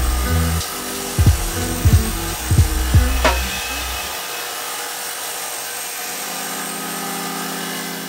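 Disc sander grinding micarta knife-handle scales: a steady rubbing hiss. Background music with a drum beat runs over it, easing into a held chord in the second half.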